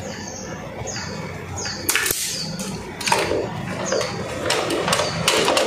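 Insulated wire being pulled through flexible plastic conduit into a plastic utility box: sharp clicks and dry scraping, with about five short high chirps that fall in pitch.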